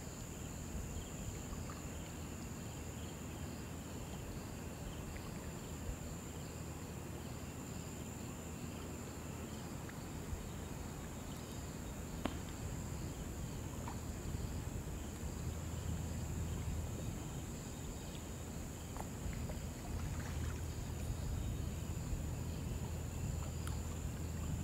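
Shallow river water running, under a steady high-pitched insect drone and a faint chirping at about two chirps a second. A low rumble swells in the second half.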